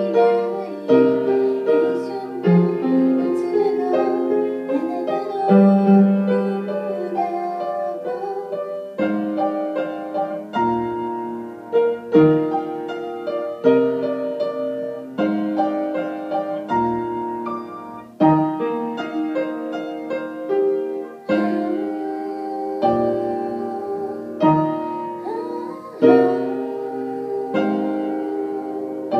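Grand piano playing a slow ballad, chords struck and left to ring. A woman's voice sings a few short phrases over it.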